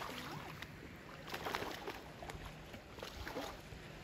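Faint splashing and sloshing of shallow water, with scattered small knocks, as an elephant seal hauls its heavy body forward over wet stones and out of the water.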